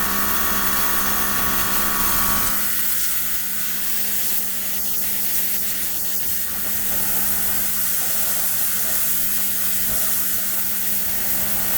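Makita electric pressure washer running, its motor and pump giving a steady hum under the hiss of the high-pressure water spray. About two and a half seconds in, the low rumble drops away while the hum and hiss carry on.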